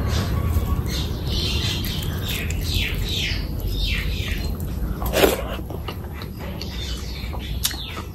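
Wet squelching and squishing of rice being mashed by hand into curry gravy, in a quick run of short squelches with one louder squelch about five seconds in, over a steady low hum.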